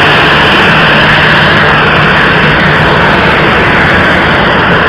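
Jet engines of a Lion Air Boeing 737 running loud and steady as the airliner taxis close by.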